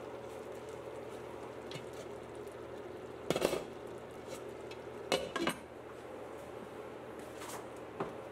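Two short bursts of metal clattering, about three and five seconds in, from a glass-and-steel pot lid being handled and set on a large pot, over the steady bubbling of a simmering pot of red beans.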